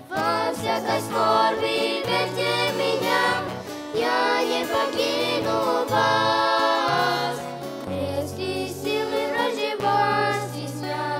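A group of children singing a Russian-language Christian song into microphones, accompanied by a man on acoustic guitar who sings along.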